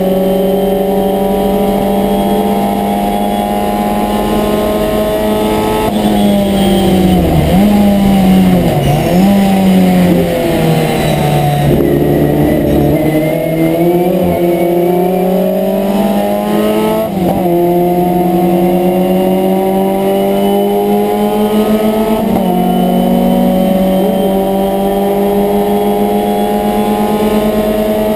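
Abarth 1000 TC's small rear-mounted four-cylinder racing engine, heard from inside the cockpit, running hard at high revs. About six seconds in the revs fall in several dips as the driver changes down, and they stay lower for a few seconds. From about seventeen seconds in they climb again, with a short dip for a gear change a little after twenty-two seconds.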